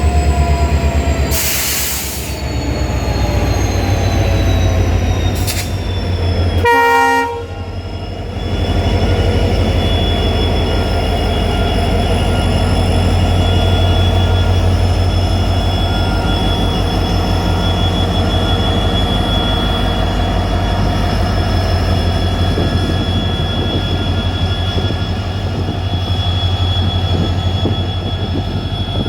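EMD diesel engine of a WDP4D locomotive running with a steady, pulsing low drone. A burst of air hiss comes about one and a half seconds in, and a short horn blast comes around seven seconds.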